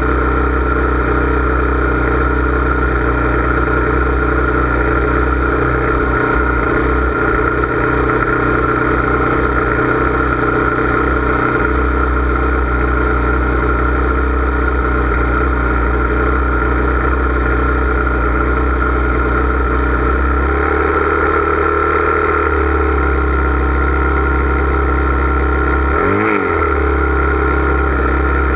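An engine idling steadily close by, its pitch dipping briefly and recovering near the end.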